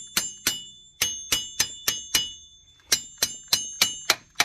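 Hammer blows on a Cadillac SRX's steel front wheel hub bearing, each strike ringing. They come about three a second in three quick runs with short pauses between. The bearing is stuck fast in the knuckle and does not come loose.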